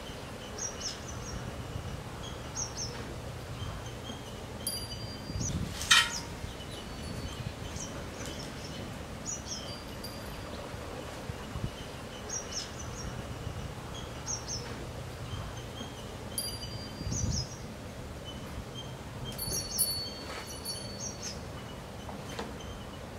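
Small birds chirping in short calls repeated every second or two over a low, even background noise, while fresh milk is poured from a steel pot into plastic jars. A single sharp clink with a short ring about six seconds in, from the steel milk pot and strainer.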